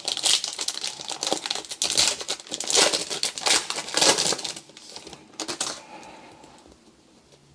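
Trading-card pack wrapper crinkling and being torn open by hand, a dense run of crackles that dies away a little under six seconds in.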